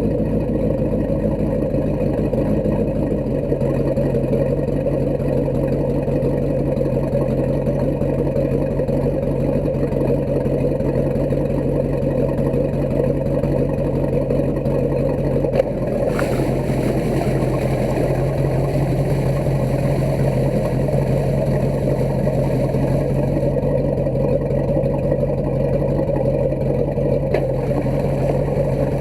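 Sterndrive boat engine running steadily while being shifted between forward and reverse to test a newly replaced throttle cable, with one sharp click about halfway through.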